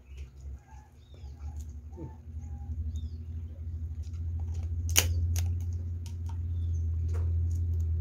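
Clicks and cracks of boiled crab shell being peeled and pulled apart by hand and bitten, with one sharp crack about five seconds in. Under it a low steady rumble builds from about two seconds in and becomes the loudest sound.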